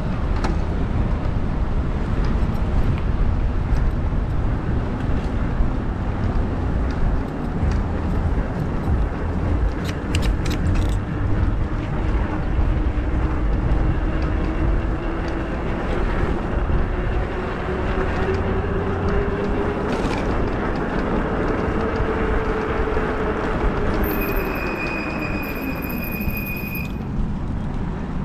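E-bike riding at speed: steady wind rush over the microphone and tyre noise, with the electric motor's whine slowly rising in pitch as the bike gathers speed, then falling away near the end as it slows. A high, steady squeal, typical of brakes, sounds for about three seconds as it slows.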